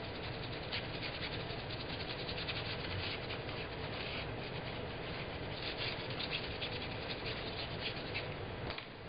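Paintbrush scrubbing and dabbing paint onto fabric: a rapid, irregular scratchy rustle of bristles over cloth, over a steady low background hum.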